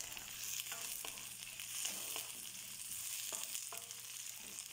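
Onion, ginger, lemongrass and green chilies sizzling in hot oil in a wok, stirred with a wooden spatula that scrapes and knocks against the pan a few times.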